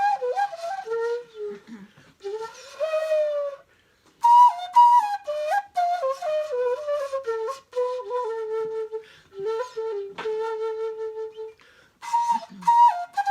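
A simple melody played one note at a time on a flute-like wind instrument, with a short pause about four seconds in.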